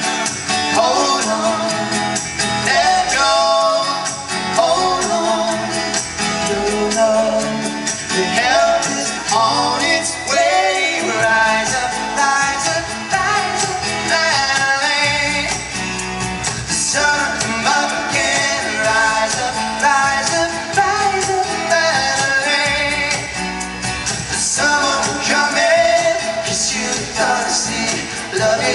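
Male pop vocal group singing a ballad live over backing music.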